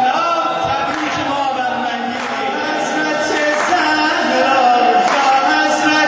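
A man sings a Shia devotional celebration song into a microphone, his voice carrying on through sung phrases.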